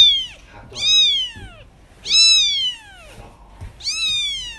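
Cat meowing repeatedly: four high-pitched meows about a second apart, each falling in pitch, the last one drawn out and trailing off.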